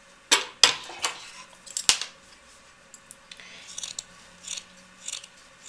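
Steel scissors cutting felted wool prefelt: a few sharp metallic clicks in the first two seconds as the scissors are taken up off the table, then a regular run of soft snips, about one and a half a second, from about halfway through.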